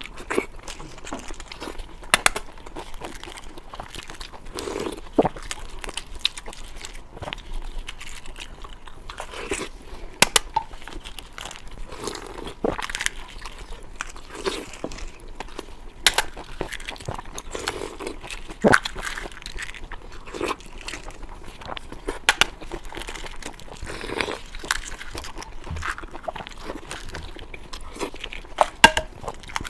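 Close-up eating sounds: a person chewing and biting food, with scattered sharp clicks and crunches.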